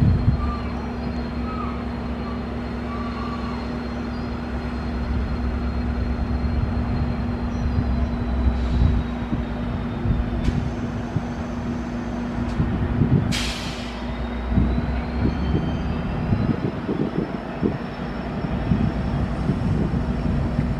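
Steady low hum and rumble of a train's idling diesel locomotive, with a short hiss of air about thirteen seconds in.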